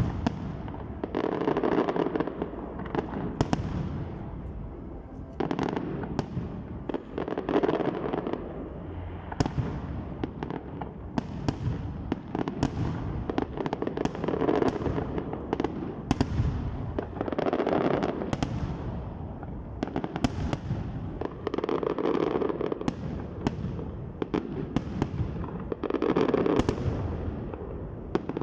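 Aerial fireworks display: a continuous run of bangs and crackling from bursting shells, swelling in waves every few seconds.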